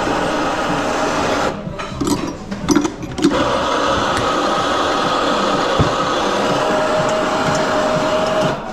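Steady mechanical whir of espresso-bar equipment. About a second and a half in it drops away for a moment, with a few sharp metal clacks as a portafilter is handled, then the whir runs on again.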